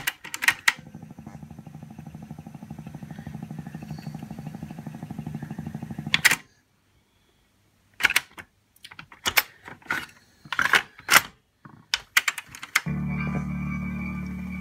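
Music playing from a cassette through the stereo amplifier with a fast, regular crackle over it, the playback fault being checked. About six seconds in it stops with a click, and after a short silence comes a run of clicks and clunks from the tape deck's controls being worked, before the music starts again near the end.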